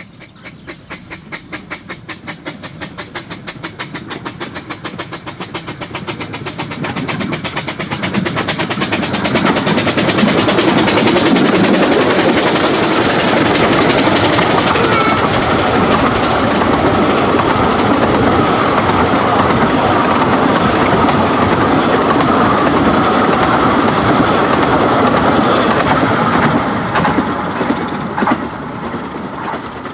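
Bure Valley Railway 15-inch gauge steam locomotive No.6 'Blickling Hall' approaching with evenly spaced exhaust beats that grow louder. It then passes close, and its train of coaches clatters over the rail joints for about eighteen seconds before fading as it draws away near the end.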